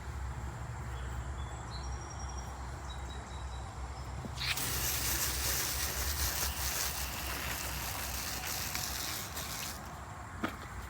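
Garden hose spraying water onto an air-conditioner condenser coil to rinse off coil cleaner, the spray starting about four and a half seconds in and cutting off about a second before the end, under weak water pressure.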